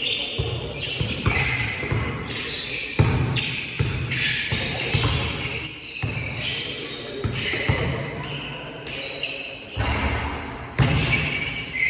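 A basketball bouncing on a court during a five-on-five pickup game: irregular thuds from dribbling and play, with players' voices here and there.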